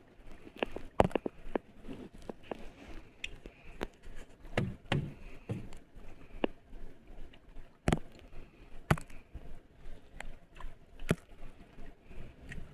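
Irregular sharp knocks and clicks, with a cluster of duller thumps about halfway through: handling and gear noise.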